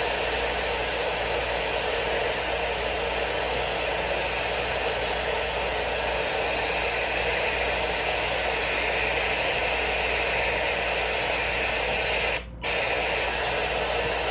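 Radio static: a steady hiss from a weak or untuned radio signal, briefly cutting out near the end.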